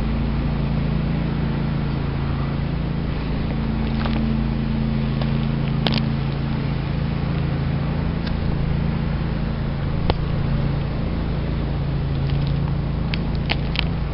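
Steady low mechanical hum with a few faint clicks and ticks.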